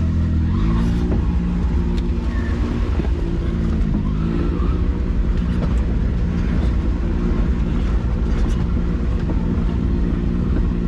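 Side-by-side UTV engine running under load on a steep descent, its pitch rising and falling several times as the throttle changes.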